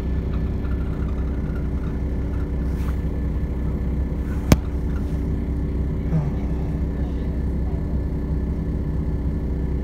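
Steady, even hum of a diesel train idling at the platform, with a sharp click about four and a half seconds in.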